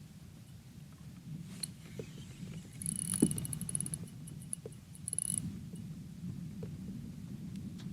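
Fishing reel clicking rapidly for about two and a half seconds as the line is worked against a snag, with a few sharp knocks against the kayak, the loudest about three seconds in, over a low steady rumble of water and wind on the microphone.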